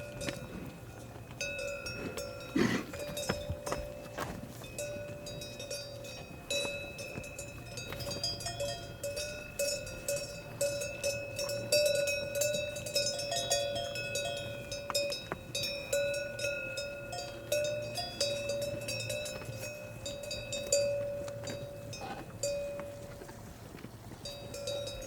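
Several cowbells on grazing cattle clanking and ringing irregularly as the animals move.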